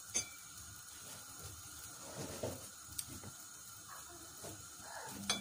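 Pot of stew simmering faintly on a gas stove, a low steady hiss, with a sharp click about a quarter second in and a fainter tick about three seconds in.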